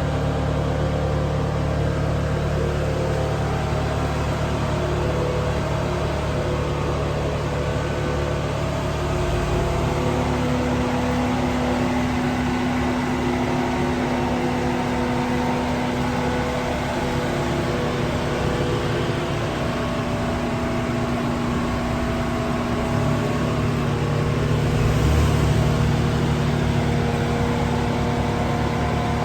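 A car engine idling steadily under the whir of a loud cooling fan, a fan fault the owner has not yet fixed. A second steady tone joins about ten seconds in, and the sound swells briefly near the end.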